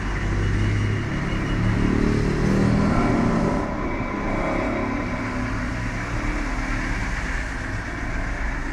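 A motor vehicle engine runs close by over steady traffic noise. It is loudest in the first three or four seconds, then settles into a steady low rumble.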